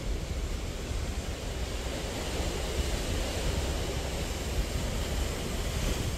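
Outdoor wind rushing over the microphone: a steady, unsteady low rumble with an even hiss above it.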